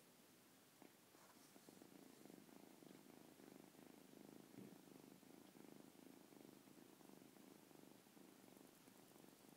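A 14-week-old lilac British Shorthair kitten purring steadily and quietly while being stroked under the chin, a sign of contentment.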